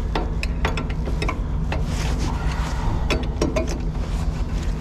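Irregular metallic clicks and clinks of a wrench tightening the nut on a truck air brake line fitting, over a steady low hum.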